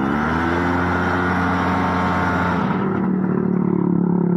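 Engine of a home-built light aircraft running on an engine test. Its pitch rises at the start, then holds steady, and a broader hiss drops away about two-thirds of the way through.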